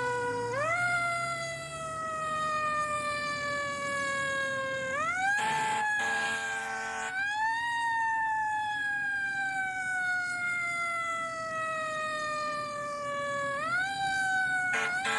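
Emergency-vehicle siren sound effect: a wail that sweeps up quickly and sinks slowly, three times over, broken by a steady blaring blast about five seconds in and another near the end.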